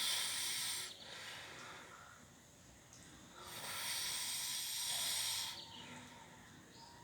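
A sleeping person's snoring breaths: long hissing breaths that come back about every four and a half seconds, one at the start and another about three and a half seconds in, each lasting about two seconds.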